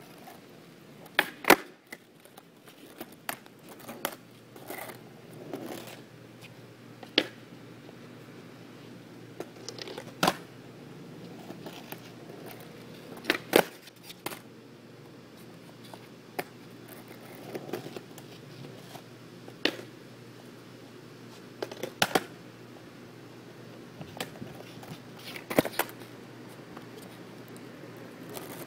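Skateboard tricks on a concrete sidewalk: the tail popping against the concrete and the board and wheels landing make sharp cracks and clacks, often in quick pairs, every few seconds.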